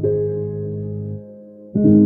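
Calm background music with sustained keyboard notes; a new chord is struck near the end.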